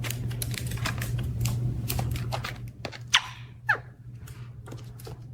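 Irregular light clicking and tapping over a steady low hum, with two short, quick falling squeaks about three seconds in.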